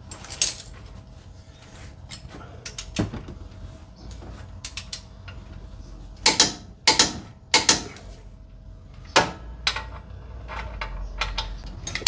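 Torque wrench on a car's brake caliper bracket bolts: a handful of sharp metallic clicks over a low background, the loudest three coming close together about six to eight seconds in, with another around nine seconds.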